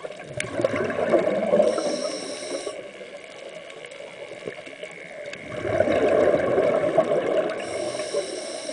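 Scuba breathing through a regulator underwater: two breaths, each a bubbling, gurgling rumble lasting two to three seconds, with a hiss near its end. The first comes about a second in and the second near six seconds in.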